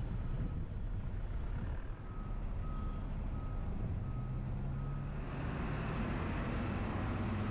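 Street traffic rumble with a vehicle's reversing alarm beeping six times, evenly spaced about every half second, through the middle; a vehicle engine grows louder near the end.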